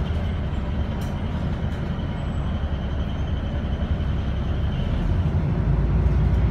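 City bus cabin noise while the bus drives: a steady low rumble of engine and road noise, growing a little louder near the end. A faint thin high whine sits over it for the first five seconds or so.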